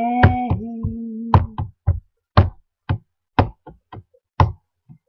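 A woman's sung note is held for about the first second and a half, then the drum beat of a rock backing track plays on its own. The beat has a strong hit about once a second with lighter hits in between.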